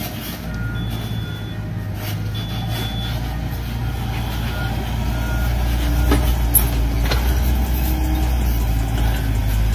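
Steady low heavy-engine drone with short, high beeps on and off through the first half, and a couple of sharp clicks past the middle: the engine sound played for an RC Volvo excavator, not the toy's own motors.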